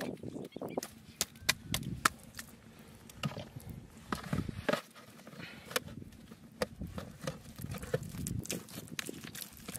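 Hands working wet mud around a plastic basket and crate set in a pit: irregular wet slaps and squelches of mud, with many sharp clicks and knocks of plastic.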